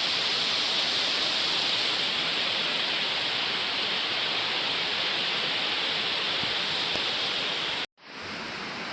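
Waterfall rushing in a steady, even roar of falling water. Near the end the sound cuts out for a split second and comes back quieter.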